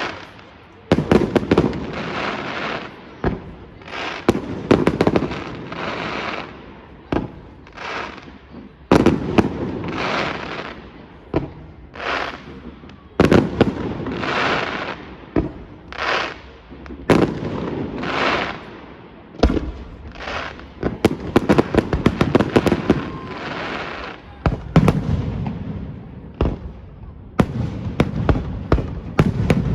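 Fireworks display: aerial shells bursting one after another every second or two, each sharp bang trailing off in a long rolling echo, with quick runs of smaller pops about two-thirds of the way through and again near the end.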